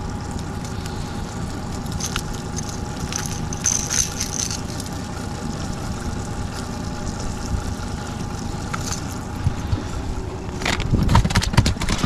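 Honda 30 four-stroke outboard motor running steadily at low trolling speed, with low hull and water rumble. A few light clicks a couple of seconds in, and several louder knocks near the end.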